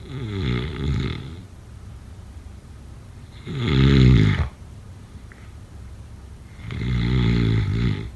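A person snoring: three snores about three seconds apart, each lasting about a second, the middle one loudest.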